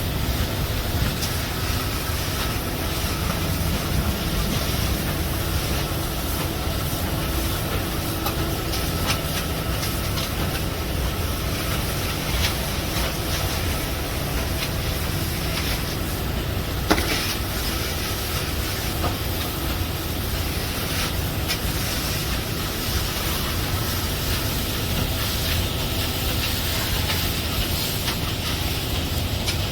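Machinery at a concrete pour running steadily: a low rumble with hiss, scattered clicks and one sharp knock about seventeen seconds in.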